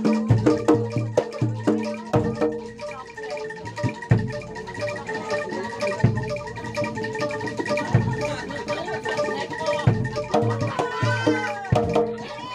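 Live Javanese gamelan music accompanying kuda lumping: metallophones ringing steady notes over deep drum strokes about every two seconds, with a bending melody line rising over them near the end.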